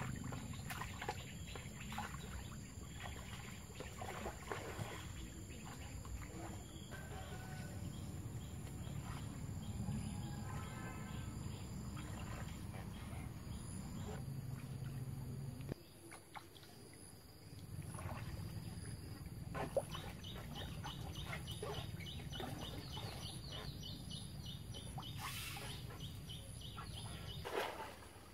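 Muddy floodwater sloshing and splashing around two people wading waist-deep as they handle bamboo poles, over a steady low rumble, with scattered sharp knocks.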